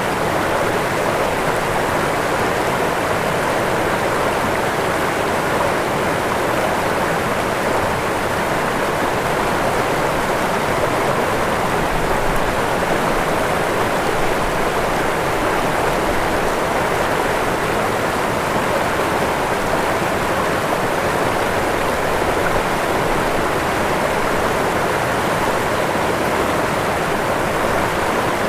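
Waterfall: water falling and rushing in a steady, unbroken roar.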